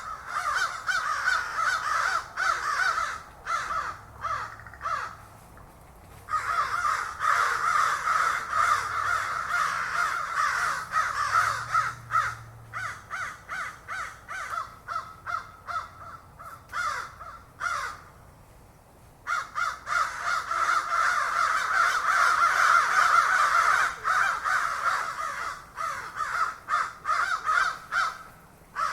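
A flock of crows cawing, many harsh calls overlapping in a dense chorus, with two brief lulls: one about five seconds in, one near eighteen seconds.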